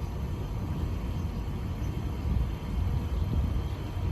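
A 5-ton York air conditioner running steadily: a low, even whoosh and rumble with a faint hum.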